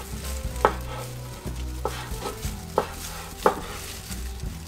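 Chef's knife cutting through a sushi roll and knocking on a wooden cutting board: several sharp knocks, roughly one a second.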